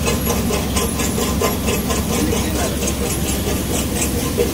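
Motor-driven seed-cleaning machine running steadily, its vibrating sieves shaking safflower seed across the screens: a constant mechanical drone with a fast, even rattle.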